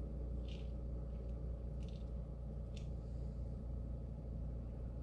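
Four faint, short scrapes of a teaspoon spooning muffin batter, over a steady low hum.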